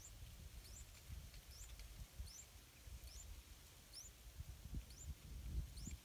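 Faint, high, short rising chirps from a small bird, repeating about once every three-quarters of a second over a low outdoor rumble.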